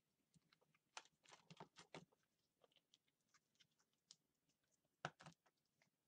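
Faint clicks and taps of plastic Play-Doh tubs and lids being handled, with a sharper pair of knocks about five seconds in.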